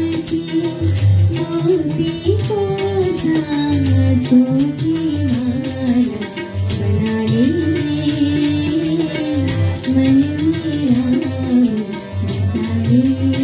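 Devotional song: a single voice sings a winding, sliding melody over a steady beat of jingling, rattle-like percussion and a low drum pulse.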